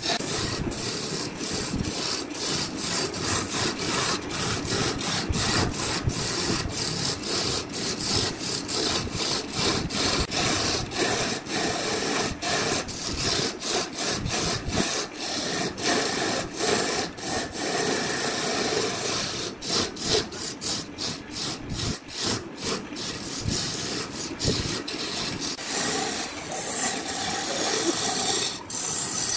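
Hand-held woodturning tool cutting a spinning wooden vase blank on a lathe: a continuous scraping hiss of steel on wood, broken by many short rough pulses.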